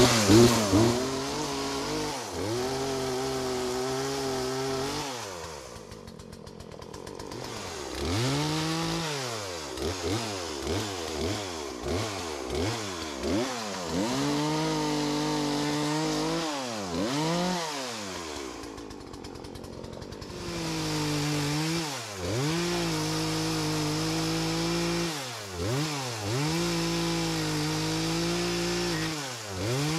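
Chainsaw cutting a downed tree, held at high revs for stretches. The engine drops to idle twice, and in between the throttle is blipped in a quick run of short revs.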